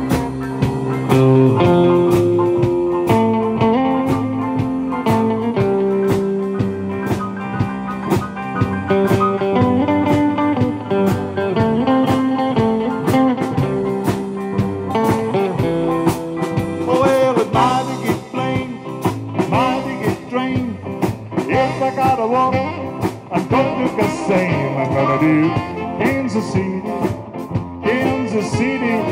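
Live rock band playing a blues-style rock-and-roll number: guitar over a steady drum beat, with wavering, bending notes in the second half.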